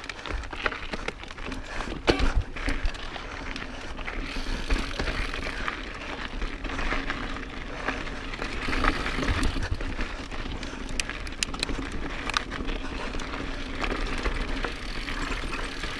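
Mountain bike riding over a rocky trail: a continuous rush of tyre and trail noise with many sharp knocks and rattles as the bike hits rocks.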